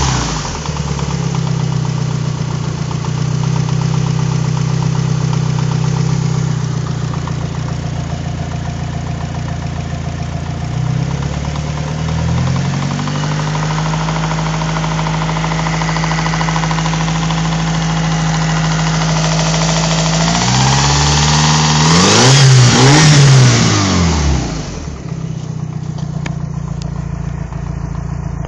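Mitsubishi Evo 4's 4G63 turbocharged four-cylinder engine idling with a knocking noise, revved briefly about twelve seconds in and again, higher and louder, about twenty seconds in before settling back to idle. The knock comes on with the engine warm and is louder at the top of the engine and at cylinder 1. The owner cannot trace its cause: crank walk, rod bearings, timing and cylinder leakage all check out good.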